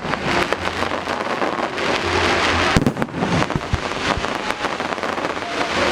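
Aerial fireworks at close range: a dense, continuous crackling of many shells and crackle effects bursting overhead, with a sharper bang about three seconds in.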